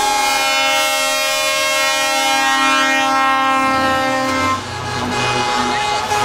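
Multi-note truck air horn blown in one long chord that sinks slightly in pitch as it passes and cuts off about four and a half seconds in, leaving the low running of truck diesel engines.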